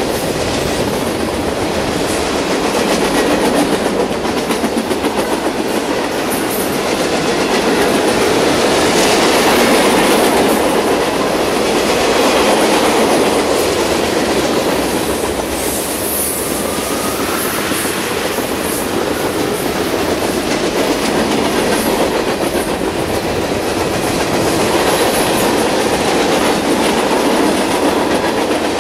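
Freight cars of a mixed train (boxcars, tank cars and covered hoppers) rolling past close by: a steady, loud rumble of steel wheels on the rails with rapid clickety-clack as the wheels cross rail joints.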